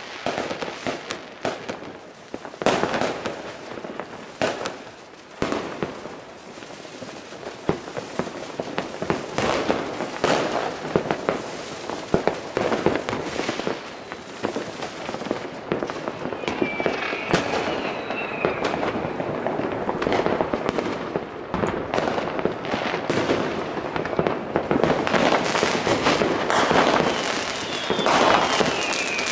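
Fireworks and firecrackers going off, a dense run of sharp bangs over continuous crackling, busiest near the end. A high whistle slides down in pitch about halfway through and again near the end.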